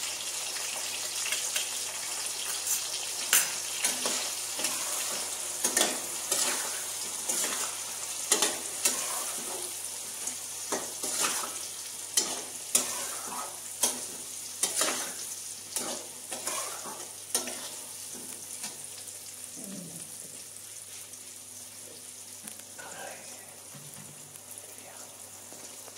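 Amla (Indian gooseberries) frying in hot oil with freshly added spice powders, sizzling steadily while a metal spatula stirs and scrapes the pan. The scraping strokes come often for most of the time, then grow sparse near the end as the sizzle settles lower.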